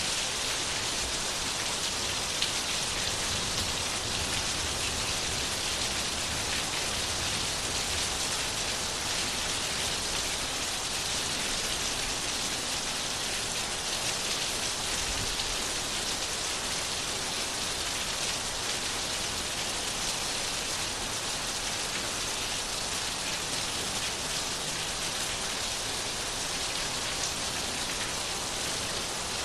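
Steady rain falling, a continuous even hiss of many fine drops hitting a surface.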